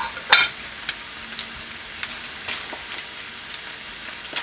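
Meat, cheese and fried eggs sizzling on a hot stovetop griddle and in a frying pan, a steady hiss with scattered pops and crackles. The loudest crackle or knock comes just after the start. The burners have just been switched off, so it is sizzling on retained heat.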